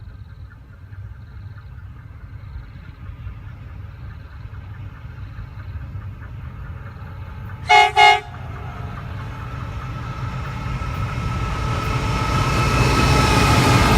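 Diesel freight locomotives' horn giving two short blasts about eight seconds in. Before and after the blasts comes a low rumble of locomotive engines and wheels that grows steadily louder as the train approaches.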